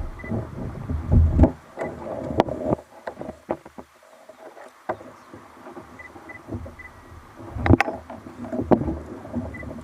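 Handling noise aboard a fishing kayak: irregular knocks and taps on the hull and gear over a low rumble, with a quieter stretch a few seconds in.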